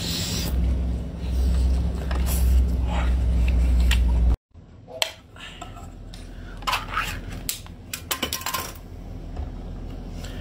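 Wet slurping and chewing of a marinated octopus tentacle, then after an abrupt cut the ring-pull metal lid of a can of octopus being popped and peeled off, a run of sharp metallic clicks and scrapes.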